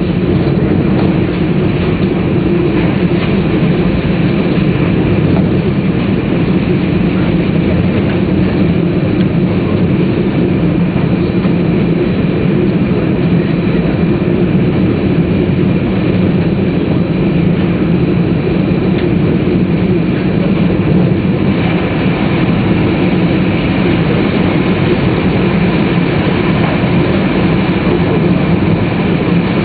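Cabin noise of a Tōhoku Shinkansen Hayate bullet train running at speed: a steady low rolling rumble with a faint steady whine above it, turning slightly brighter about two-thirds of the way through.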